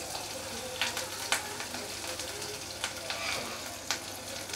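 Chopped onion frying in hot oil with cumin seeds in a kadai, as the pieces are dropped in by hand: a steady sizzle with a few sharp clicks.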